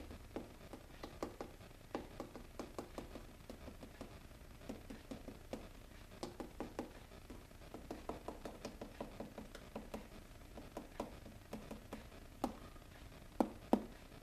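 Light, irregular tapping and pattering as fine model-railroad ballast is shaken from a metal teaspoon onto the track shoulder, the ticks coming in quick little runs. A few louder clicks near the end.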